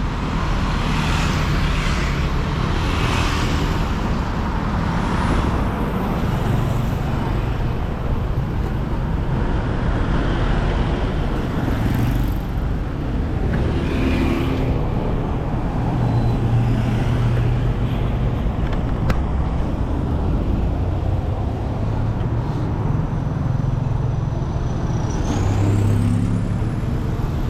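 Road traffic: motor vehicles running and passing, a steady low engine hum under road noise.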